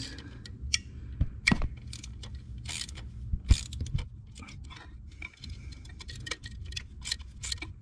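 Socket wrench on a long extension loosening the standpipe screws inside an oil filter housing: irregular runs of ratchet clicks and light metal clinks.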